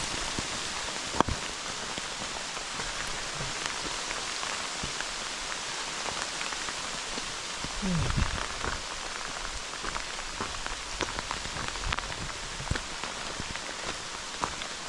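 Steady rain falling, with scattered sharper drop ticks and a brief low sound about eight seconds in.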